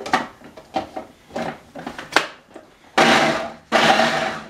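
Plastic lid and bowl of a small food processor knocked and clicked into place, then the motor pulsed twice in short bursts about three seconds in, chopping raw cauliflower florets.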